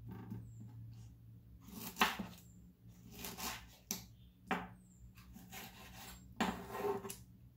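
Kitchen knife slicing through peeled pineapple on a wooden cutting board, the blade knocking sharply on the board a few times, loudest about two seconds in, with short rasping cuts between the knocks.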